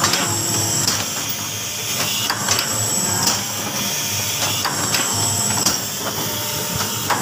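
Automatic soap-wrapping machine running, its stainless steel mechanism clacking steadily while the pneumatic cylinders let out short hisses of air about every two and a half seconds.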